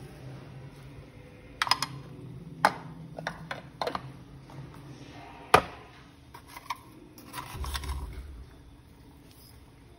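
Spoon and dishes clinking and knocking during food prep: a scattering of sharp clicks, the loudest about five and a half seconds in.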